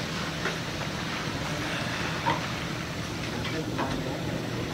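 Steady drone of boat engines from a river cargo barge and a speedboat running alongside, over the wash of water.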